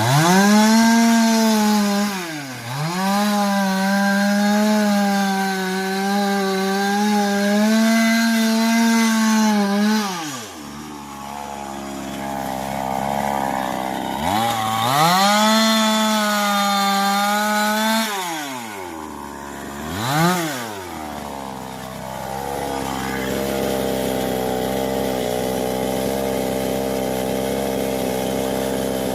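Two-stroke chainsaw at full throttle, cutting wood, with a brief dip about two and a half seconds in. It falls back to idle around ten seconds, revs high again for a few seconds, gives one short rev, then idles steadily.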